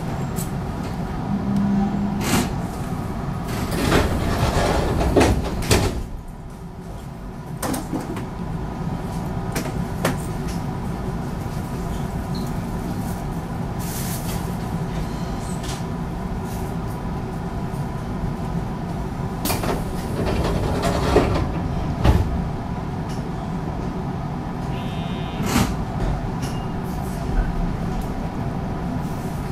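Unrenovated JR 221 series electric train running, heard from inside the car: a steady hum from the motors and running gear, with the wheels clacking over rail joints now and then.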